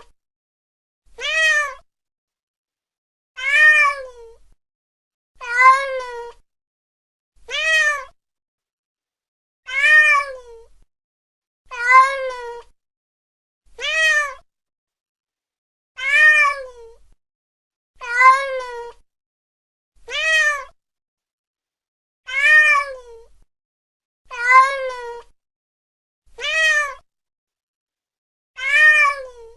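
Domestic cat meowing over and over, about one meow every two seconds, each a short call that rises and then falls in pitch, with silence between.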